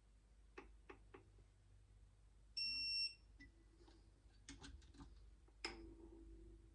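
A single high electronic beep lasting about half a second, typical of a digital torque wrench or torque gauge signalling that the set torque on a head stud has been reached. Light clicks of the wrench come before and after it.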